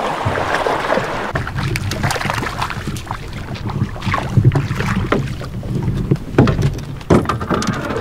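Wind rumbling on the microphone, with scattered knocks and rustling as people shift about in a drift boat to net a fish.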